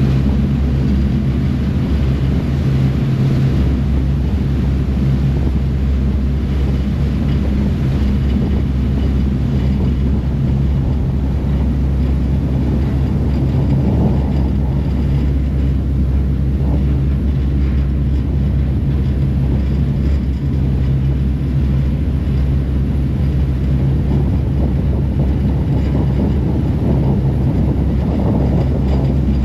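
Harbour ferry under way: its engines run at a steady low hum, over the rush of water churned up in the wake.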